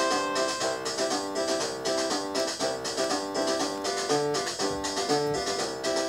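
Background music: a keyboard tune of short, stepping notes over a steady beat.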